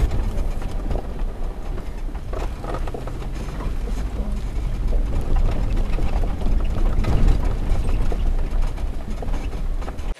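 Jeep Wrangler driving slowly over a rough dirt and gravel trail: a steady low rumble of engine and tyres, with scattered knocks and rattles from the rocky ground.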